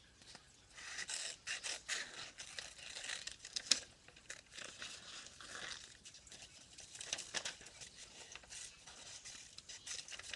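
Paper rustling and crinkling as it is handled, in irregular bursts with a few sharp clicks, the loudest about halfway through.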